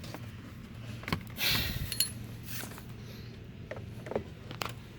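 Plastic truck door trim panel being handled and pushed onto the door: a scraping rub about a second and a half in, and several sharp clicks and knocks as it is pressed into place.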